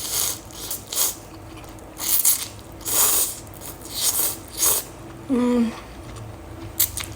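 A person slurping spicy instant noodles close to the microphone: about six short slurps, with a brief closed-mouth "mm" hum about five seconds in.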